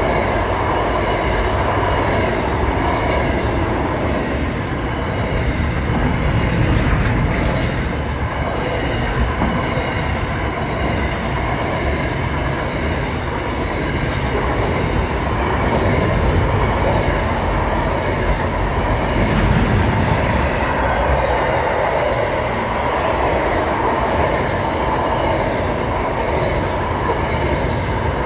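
Wagons of a double-stack container freight train rolling past, their steel wheels running steadily on the rails.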